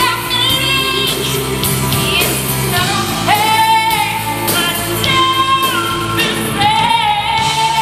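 A woman sings live into a microphone over orchestral accompaniment, holding long notes, with one swooping up into pitch about three seconds in.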